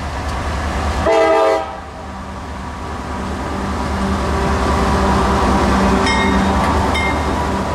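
CSX diesel freight locomotives rumbling past at close range, with one short horn blast about a second in. The noise of the locomotives and the following hopper cars then builds as the train goes by.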